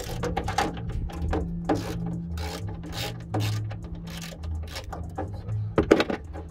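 Hand ratchet wrench clicking in short, uneven strokes as a bolt at the fender's hood strut mount is worked, over a low wind rumble on the microphone.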